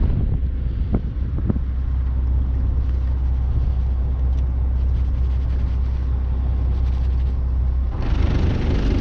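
Fishing boat's engine running with a steady low rumble, with wind on the microphone; a stronger gust of wind noise comes in near the end.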